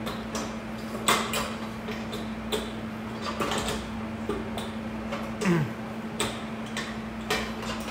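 A stainless steel mixing bowl with a paddle inside being seated on the bowl-lift arms of a stand mixer: a string of irregular metal knocks, clicks and scrapes.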